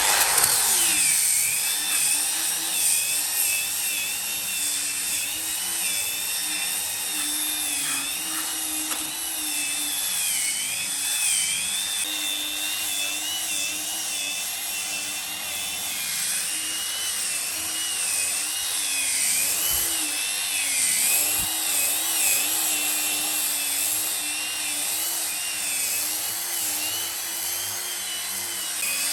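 Hand-held electric power tool running on wood, its motor tone wavering up and down as it is pressed into the work, with a steady hiss of cutting or sanding.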